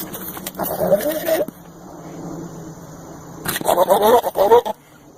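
An animal calls twice, each call about a second long with a quavering, wavering pitch.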